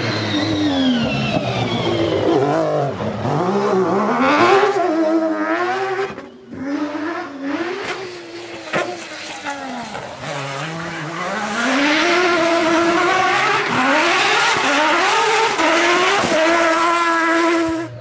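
Rally car engine revving hard at full attack, its pitch climbing and dropping again and again with gear changes and lifts off the throttle. Several short passes are spliced together, with abrupt changes about a third and halfway in.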